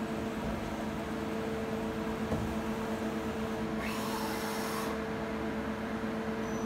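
Doosan Puma 480XL CNC lathe humming steadily at a standstill, with a short click a little after two seconds and a hiss lasting about a second from about four seconds in.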